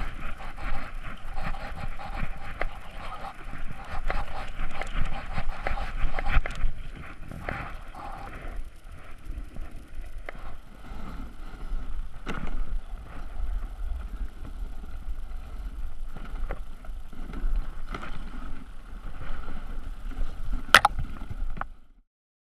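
Rough scraping and rumbling of a sled moving over snow, with wind on the microphone. A sharp click comes near the end, then the sound cuts off suddenly.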